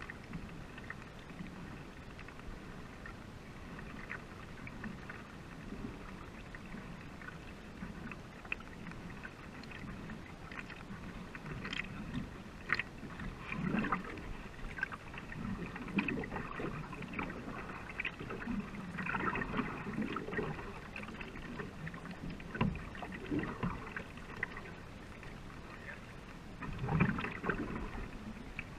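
Canoe paddles pulling through river water, with a splash and gurgle at each stroke over a steady rush of water along the racing canoe's hull. The strokes come irregularly every second or two, louder in the second half, with the biggest splash near the end.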